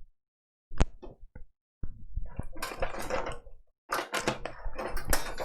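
Handling of tools and small parts on a repair bench: a few sharp clicks about a second in, then a longer spell of clattering and rustling.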